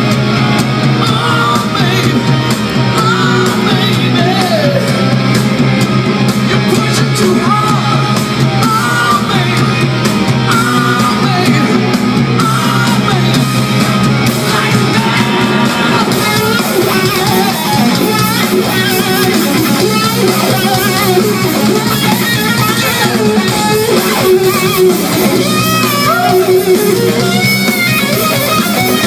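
Live rock band playing loud, amplified through the PA and heard from the crowd: distorted electric guitar, bass and drums, with a singer's voice over it in places.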